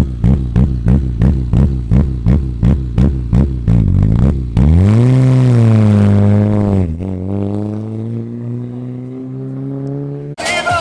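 Rally car engine blipped rhythmically, about three quick revs a second, then taken to full throttle as the car pulls away. There is a gear change about seven seconds in, after which the engine note climbs steadily. Near the end it cuts off abruptly into music.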